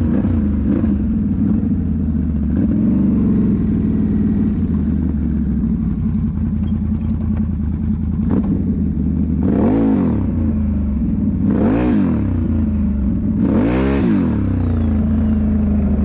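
Can-Am Renegade 1000 XMR ATV's V-twin engine running steadily under way. In the second half, the revs swing up and back down three times, about two seconds apart.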